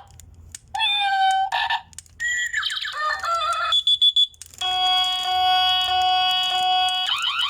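Wireless doorbell receiver's speaker playing a string of short electronic ringtones one after another: warbling chirps and glides, a held beep, then a longer pulsing electronic tone, and rising sweeps near the end, as the tones are stepped through.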